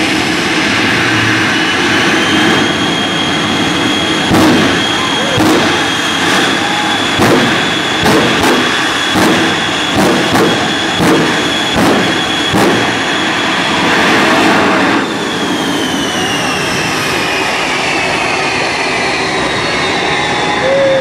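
Shockwave jet truck's jet engines running with a steady high turbine whine. Over the middle of the stretch comes a run of about a dozen loud bursts, roughly one every 0.7 seconds, from the flame blasts out of its stacks. Then, about fifteen seconds in, the sound drops suddenly and the whine falls steadily in pitch as the engines wind down.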